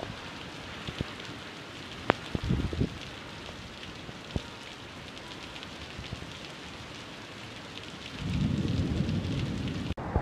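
Torrential monsoon rain falling hard on pavement: a dense, steady hiss with fine drop ticks and one sharp tap about two seconds in. A louder low rumble comes in about eight seconds in.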